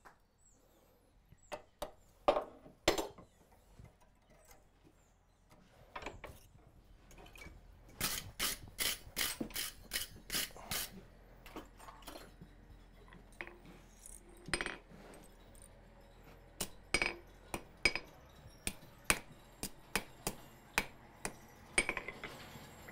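Hand hammer striking hot steel on an anvil while a small drawer pull is bent over the horn: a few sharp blows, then a quick even run of about five strikes a second about a third of the way in, then scattered single taps.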